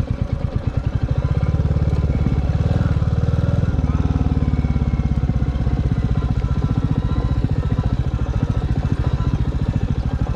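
Royal Enfield Classic 350's single-cylinder engine running steadily as the motorcycle is ridden along a rough dirt track, heard from the rider's seat. Its exhaust beat is a rapid, even pulse that grows a little fuller from about two to four seconds in.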